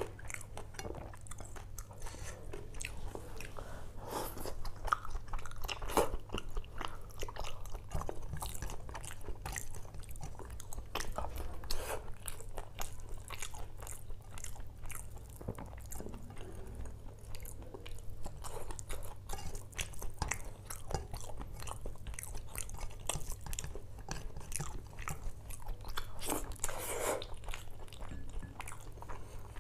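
Close-miked chewing and crunching of spicy fried prawns and fish curry with rice, eaten by hand: a dense, irregular run of crunches and clicks from the mouth, over a steady low hum.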